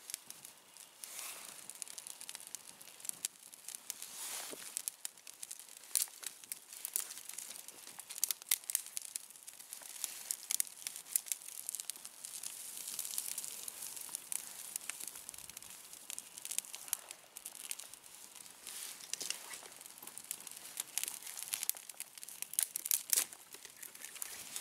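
Small cook fire newly caught from a tinder bundle, its dry kindling burning with dense crackling and frequent sharp pops over a soft hiss.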